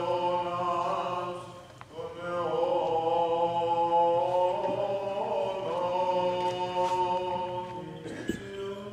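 Greek Orthodox Byzantine chant sung by men's voices in long drawn-out notes over a steady low drone, with a short break about two seconds in.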